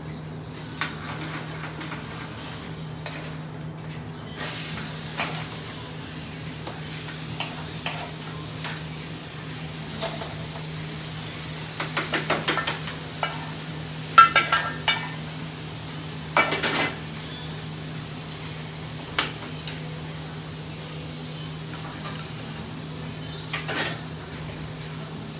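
Chicken tikka karai sizzling in a pan on a gas burner, stirred with a metal spoon that scrapes and clacks against the pan, the clacks bunched in the middle. A steady low hum runs underneath.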